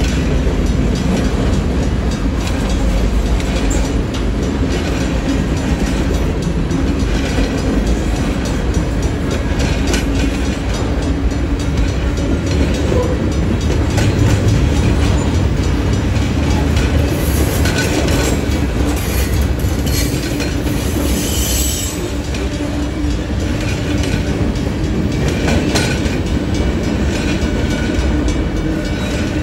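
Freight cars of a Union Pacific manifest train rolling slowly past, a steady rumble with the clickety-clack of wheels over the rail joints.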